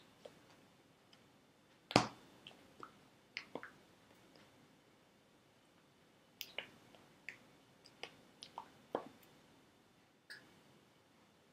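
Scattered short clicks and taps of hands striking and brushing together during fast sign language, with one sharp slap about two seconds in and about a dozen softer ones after it.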